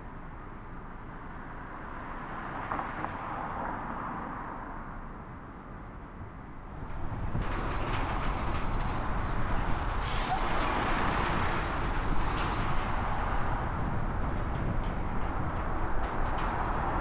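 City traffic and road noise heard from a car driving through the streets; it grows clearly louder and rougher about seven seconds in.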